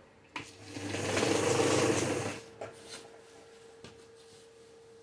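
Electric domestic sewing machine stitching cotton fabric in one short run: it starts with a click about half a second in and runs for about two seconds before stopping, followed by a few light clicks.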